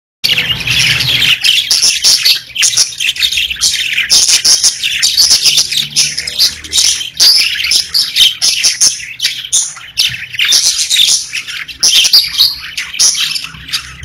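Pet budgerigars chirping and singing: a dense, continuous chatter of many short, high overlapping chirps.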